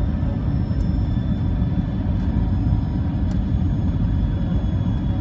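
Cabin noise of a Boeing 747SP on final approach: the jet engines and rushing airflow make a steady low rumble, with a faint high whine over it.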